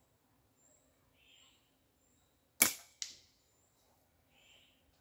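Slingshot shot: a loud sharp snap as the doubled Theraband bands release a 7 mm steel ball, then a fainter crack about half a second later as the ball strikes the beer-can target. Faint bird chirps.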